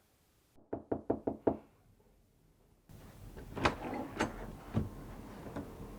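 Knuckles knocking on a door: a quick run of about six sharp knocks. A few softer thumps and clicks follow a couple of seconds later.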